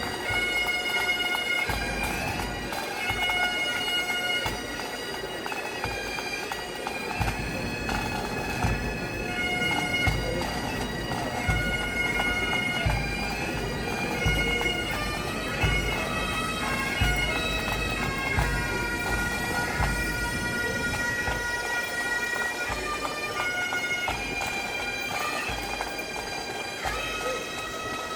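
Bagpipes playing a tune, notes held and stepping from one to the next without a break.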